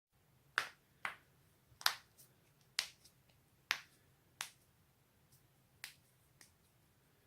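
A person's joints cracking: about eight sharp, brief pops at uneven intervals, with a few fainter clicks between them.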